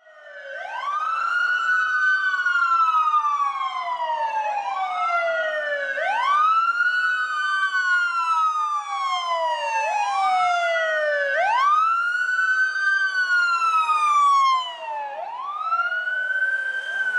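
Fire engine and rescue ambulance sirens in wail mode: two overlapping, out-of-step wails, each rising quickly and then falling slowly over about four seconds, repeating.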